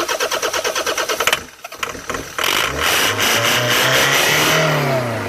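Land Rover Freelander 2.0 L-series turbodiesel cranking on the starter with a fast even beat. After a brief pause it fires on easy-start spray with the throttle held wide open, revving up and then dropping away near the end. The engine will not start on its own fuel and runs only on the spray.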